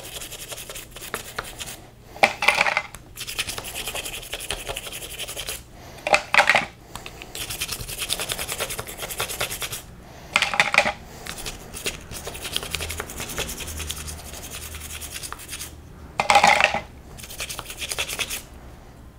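A toothbrush scrubbing a solvent-wet metal differential part over a rag: steady bristle scratching, with four short, louder bursts of harder scrubbing a few seconds apart.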